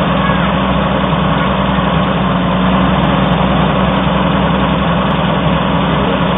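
Oliver 770 tractor's six-cylinder engine running steadily at an even, idle-like speed.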